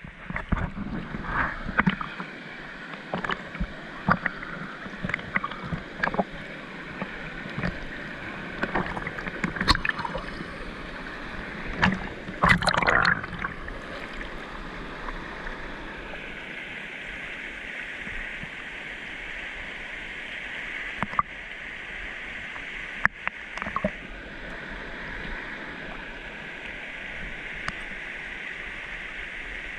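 A rushing mountain stream, running high after heavy rain, with irregular sharp splashes through the first half, densest about twelve seconds in, and then a smooth steady rush of water.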